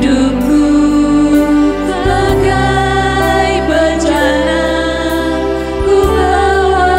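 A Christian worship song: women's voices singing with keyboard accompaniment from a Roland RD-700 stage piano and a second keyboard. Held low keyboard notes change twice, about two and a half and six seconds in.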